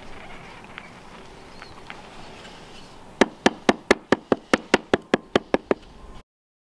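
A hammer tapping a mint sandstone cobble down into its mortar bed to level it: about thirteen quick, sharp taps at roughly five a second, starting about three seconds in.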